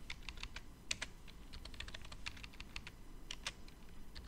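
Typing on a computer keyboard: quick, uneven key clicks, about five a second.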